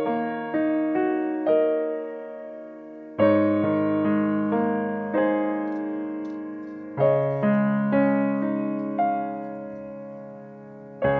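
Background music: a slow piano piece, with notes and chords struck and left to fade.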